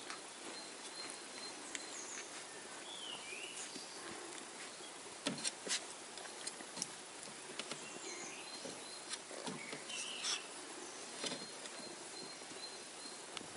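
Flat-coated retriever puppies squirming and mouthing one another in a whelping box: soft rustling on the bedding with scattered sharp clicks and taps, loudest about five and ten seconds in, and faint short high chirps now and then.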